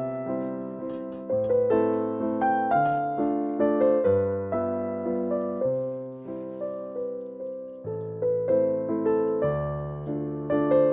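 Background piano music: single struck notes that ring and fade, over lower bass notes that change every second or two.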